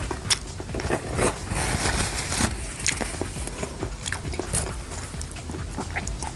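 Close-up biting and chewing of grilled and fried street food, with irregular crunches and clicks.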